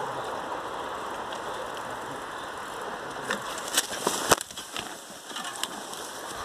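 A mountain bike and its rider coming off a steep dirt descent right beside the camera: a short run of clattering knocks with one hard, sharp knock about four seconds in, over a steady hiss of background noise.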